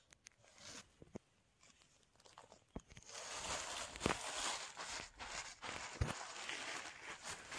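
Hands pressing and kneading rice and rice bran powder on a woven plastic sack to make fish bait: a dense rustle of grain and crinkling sack that starts about three seconds in, with a few small clicks before it.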